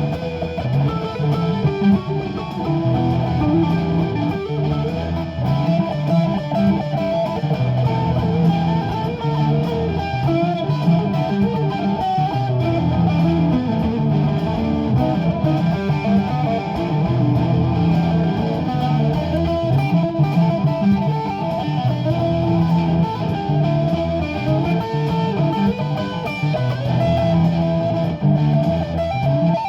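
Improvised live-looped guitar music: electric guitar lines over a repeating low bass loop, played continuously at a steady level.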